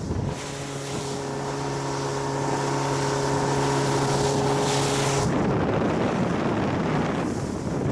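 A boat's motor running with a steady hum over wind buffeting the microphone and sea noise. The hum stops abruptly about five seconds in, leaving the wind and water.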